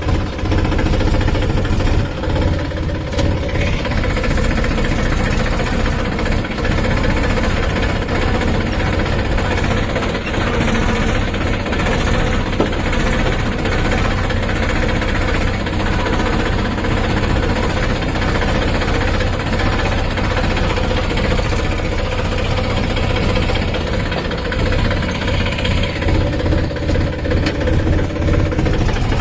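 Tractor's diesel engine running steadily, its low pulse strongest in the first couple of seconds and again near the end.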